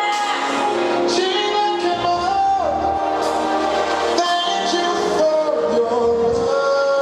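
Music with singing: a song with voices over a steady band backing.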